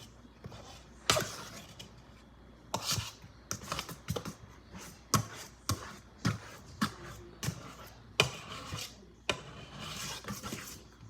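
A fork scraping and clicking against a mixing bowl as cake batter is stirred by hand and the clumps are mashed, in irregular strokes about one or two a second.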